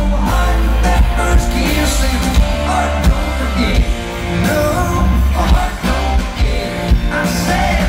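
Live country band playing, with a man's lead vocal over guitar, keyboards and bass.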